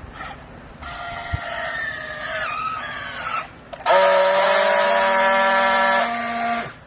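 Hydraulic press baler whining under load: a slightly falling whine for a couple of seconds, then after a short break a louder, steady whine that stops suddenly near the end.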